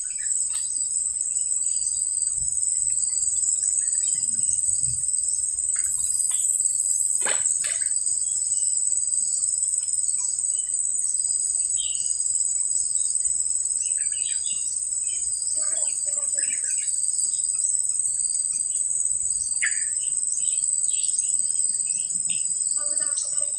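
Steady, high-pitched drone of a tropical insect chorus with a regular pulsing call running through it, and a few scattered bird chirps.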